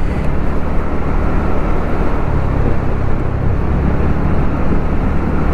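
TVS Ntorq 125 scooter's single-cylinder engine running while riding at about 40–45 km/h, mixed with steady wind rush on the microphone.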